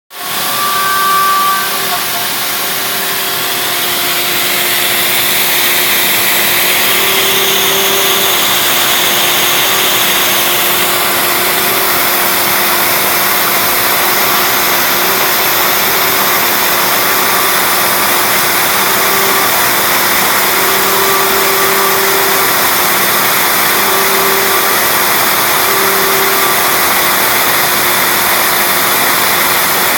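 MPCNC router spindle running steadily while a fine engraving bit carves into MDF, a continuous hissing whine. Short whining tones come and go as the machine's stepper motors move the cutter.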